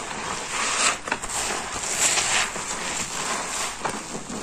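A lather-soaked porous car sponge being squeezed and kneaded by hand, the soapy foam crackling and squishing in repeated swells about once a second.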